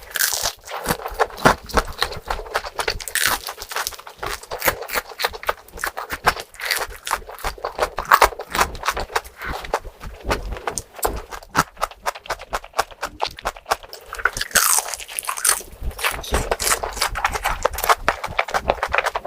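Close-miked eating: a person biting and chewing crunchy food, a dense, continuous run of quick crunches.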